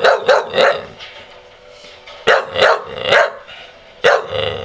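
Young bull terrier barking: short barks in quick runs of three with a pause of over a second between, then one more bark near the end.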